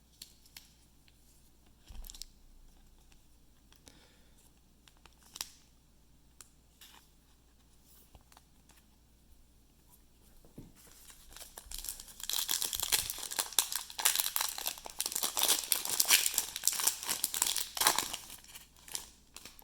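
A few soft taps and clicks of trading cards being handled. Then, from a little past halfway, a trading-card pack wrapper is torn open with several seconds of loud crinkling.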